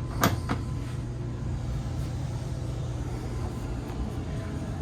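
Two short knocks about a quarter and half a second in, like a cabinet door or drawer shutting, then a steady low background hum.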